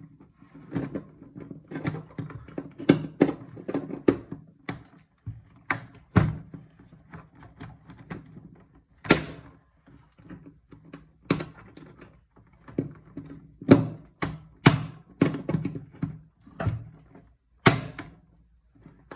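Pliers clicking and knocking against a computer case's metal chassis while working at a screw that won't come out with the screwdriver. The clicks and knocks are irregular, with a few sharper, louder ones.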